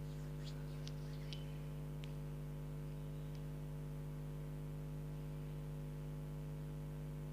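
Steady electrical hum with a stack of overtones, unchanging throughout, with a few faint ticks in the first few seconds.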